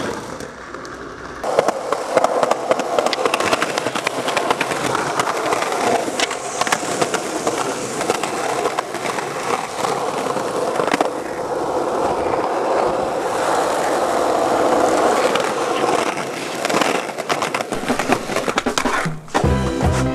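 Skateboard wheels rolling on concrete sidewalk, with repeated sharp clacks of the board popping and landing. Music comes in just before the end.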